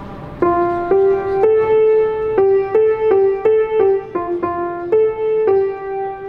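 Grand piano picking out a simple tune one note at a time, starting about half a second in and stepping back and forth among a few neighbouring notes at about two notes a second.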